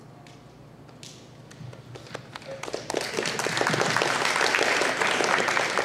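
Audience applauding: a few scattered claps about a second and a half in, quickly building into steady full applause.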